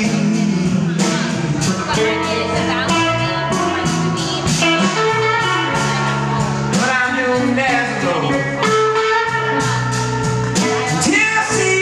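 A live blues band playing: electric guitar, bass guitar and drum kit, with steady drum hits under held guitar notes.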